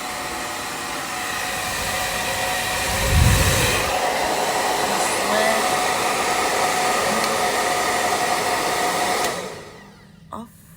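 Hand-held blow dryer running with a steady rush of air and a faint whine, then cutting off about nine seconds in. A brief low rumble about three seconds in, and a small click near the end.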